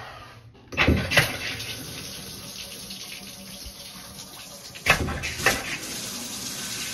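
Water running from the tub spout of a freshly rebuilt Gerber three-handle tub/shower valve and splashing into the bathtub, turned on to test the repair. The flow comes on about a second in with a couple of loud knocks, and two more knocks come about five seconds in.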